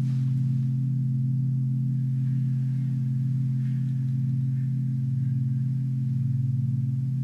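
Meditation music built on a low, steady ringing drone with a regular wavering pulse. Faint higher tones sound briefly above it midway.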